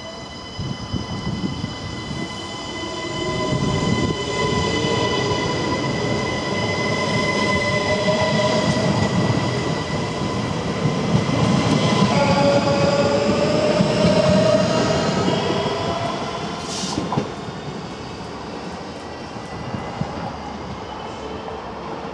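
SNCB AM08 Desiro ML electric multiple unit passing along the platform. It gives a steady high electric whine and a mid-pitched motor tone that wavers and shifts in pitch, over the rolling of the wheels. The sound grows louder to a peak about halfway through, then fades as the train moves away.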